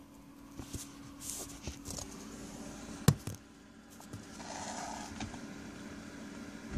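A phone camera handled inside a car: rubbing, rustling and small knocks, with one sharp knock about three seconds in, over a steady low hum.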